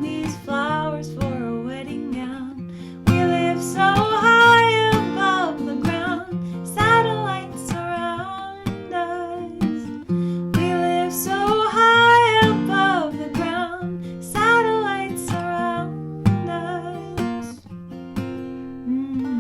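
Strummed acoustic guitar, with a woman singing a melody over it in long, held notes.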